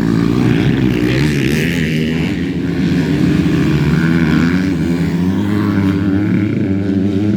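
Several motocross dirt bikes racing, their engines revving up and down together in a steady, overlapping drone.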